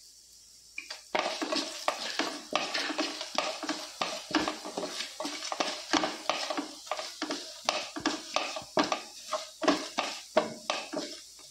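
A wooden spatula stirs and scrapes whole spices (coriander seeds, fennel, cumin, cinnamon sticks) around a metal pan as they roast. It makes a quick run of irregular scraping strokes with rattling seeds, starting about a second in and stopping just before the end.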